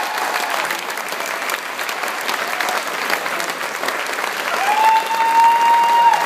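Audience applauding steadily. Near the end a long, steady whistle slides up and holds over the clapping.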